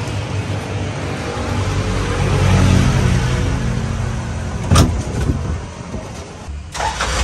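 Truck engine running and getting louder about two to three seconds in as the truck pulls away, with one sharp knock near five seconds.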